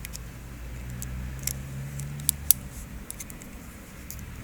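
Small sharp metal clicks and ticks of the scooter's cam chain tensioner being taken apart by hand, whose spring turns out to be broken, over a low steady hum.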